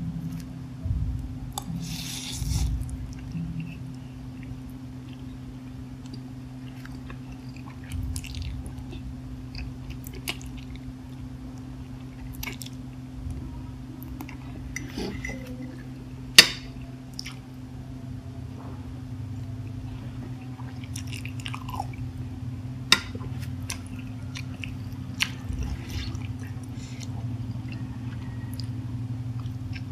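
Close-miked eating of spicy instant noodles: wet chewing and slurping of the noodles, with a few sharp clicks, the loudest about halfway through. A steady low hum runs underneath.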